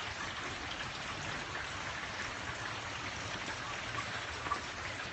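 Steady light rain falling, an even hiss of drops without a break.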